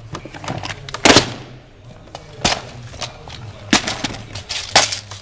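Hard plastic parts-organiser boxes being handled and stacked on a wooden bench, making a series of sharp clacks: a loud one about a second in, then three more spread through the rest.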